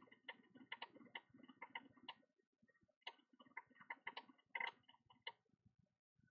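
Faint, irregular light clicks and taps, several a second, in two runs with a short pause about two seconds in, stopping a little after five seconds.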